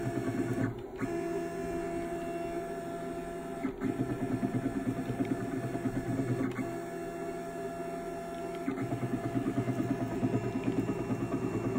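CNC 6040 router's Z-axis stepper motor driving the spindle down and up in repeated jogs: a steady mechanical whine that shifts pitch with each new move, about four times.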